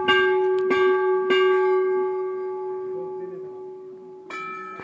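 A temple bell is struck three times in quick succession, about half a second apart, and rings on, slowly fading. Near the end a second bell with a different pitch is struck.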